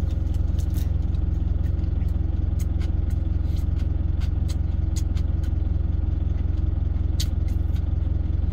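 A truck's engine idling steadily, heard from inside the cab as a constant low hum, with close chewing clicks of a mouthful of gimbap.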